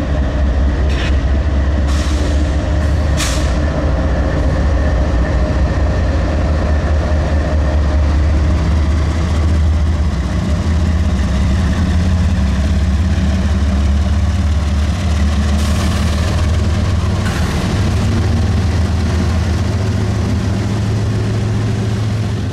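CSX diesel-electric locomotive passing close by, its engine running in a steady deep rumble as the train of covered hoppers rolls past. Short sharp noises cut through it a few times in the first few seconds and twice more past the middle.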